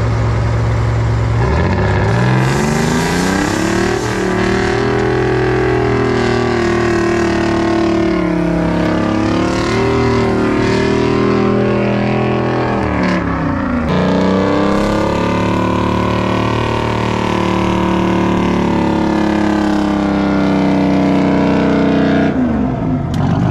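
Heavy diesel truck engine revving up hard under load and holding high revs, with a couple of brief dips, then dropping back toward idle near the end.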